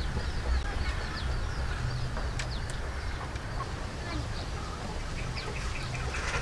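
Outdoor ambience of small birds chirping, many short falling chirps, with a quick run of ticking calls about five seconds in, over a steady low rumble.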